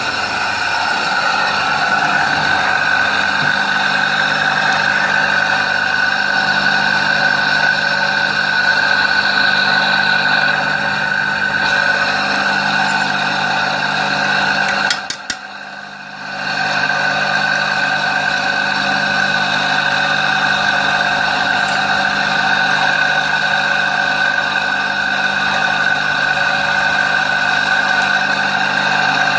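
Washing-machine motor of a homemade rice-flour grinder running steadily with a whine, spinning its blade to grind brown rice. About halfway through it stops for about a second and spins back up.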